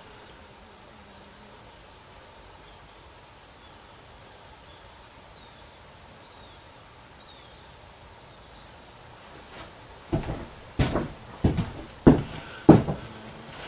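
Quiet room tone with faint, evenly repeated high chirps for most of the stretch. From about ten seconds in, a quick run of knocks and thumps: footsteps on a wooden floor as someone walks over and sits down at a bench.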